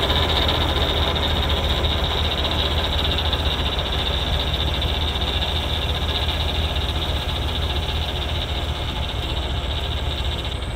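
New Holland L85 tractor's diesel engine running steadily under load while driving a PTO-powered two-stage snowblower, with the rush of wet snow being blown out of the chute. It grows slightly fainter as the tractor moves away.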